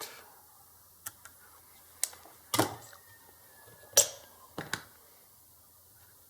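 About half a dozen sharp clicks and taps of things being handled on a work surface, the loudest about four seconds in, over a faint steady low hum.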